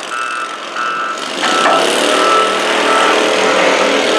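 Stock altered garden tractor engine under heavy load dragging a weighted stoneboat sled. It revs up about a second and a half in and then runs hard and steady.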